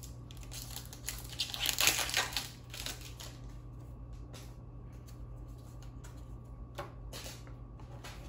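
Foil trading-card booster pack crinkling and tearing open for the first few seconds, then quieter short flicks and slides as the cards are handled one by one.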